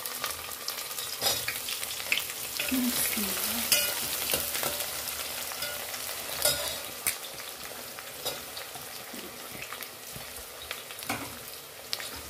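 Sliced onions frying and sizzling in hot oil in a pot, stirred with a steel ladle that clicks and scrapes against the pot now and then. The sizzle slowly eases as the onions settle in the oil.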